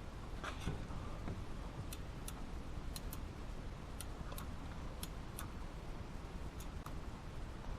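Small, sharp clicks, many coming in pairs a fraction of a second apart and scattered irregularly, from hand work on a KW damper's adjustment knob and the plastic retaining ring being forced into its groove.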